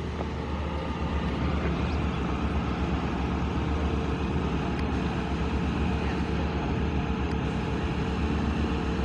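Engine running steadily: a low drone with a faint steady hum above it.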